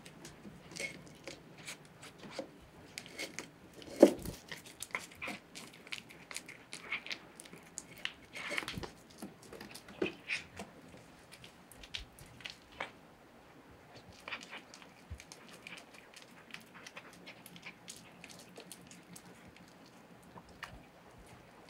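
A tortoiseshell cat eating shredded chicken breast from a plate and off a wooden floor: irregular chewing, smacking and small clicks, with one sharp knock about four seconds in that is the loudest sound.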